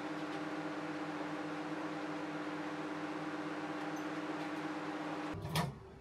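Microwave oven running with a steady mains hum while it heats a crucible to melt scrap brass in its kiln. It cuts off suddenly about five seconds in, followed at once by a single sharp clunk.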